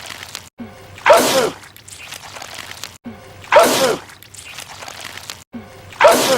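A man sneezing loudly three times, about two and a half seconds apart, each a sharp burst whose voice falls in pitch. It is the same sneeze repeated on a loop, with an abrupt cut before each one.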